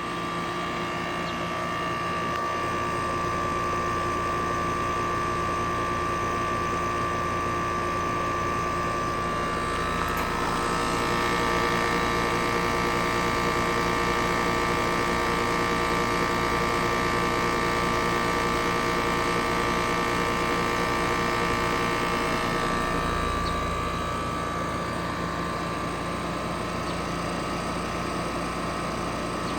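Trane 5-ton heat pump (4TWR4060G1000A) running with a loud, steady hum made of several tones. It gets a little louder and higher about ten seconds in, then settles back lower near the end. The owner finds it much louder than his old unit, though his installer calls it normal.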